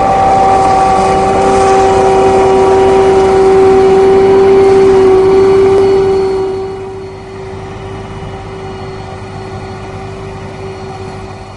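Krone BigX 500 self-propelled forage harvester running under load with a steady, high-pitched whine over the engine. The sound drops clearly in level about six to seven seconds in.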